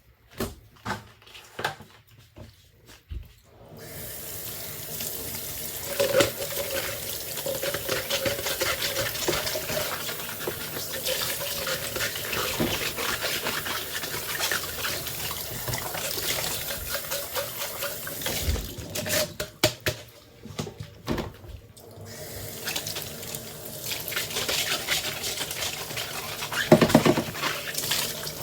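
Kitchen tap running into a sink as dishes are rinsed under it, with clinks and knocks of dishes being handled at the start and again in a break in the water about two-thirds through.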